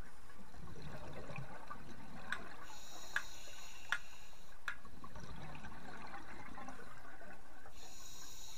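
Underwater sound of a scuba diver breathing through a regulator: low bubbly exhalations alternate with hissing inhalations, two full breaths, with a few sharp clicks in the middle.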